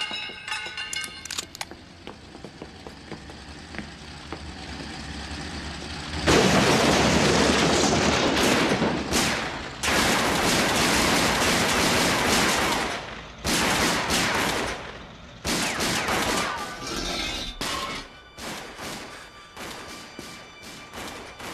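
Cartoon action soundtrack of a shootout: long bursts of gunfire and crashing, several seconds each with short breaks, under orchestral score. Near the end the firing thins to scattered single shots.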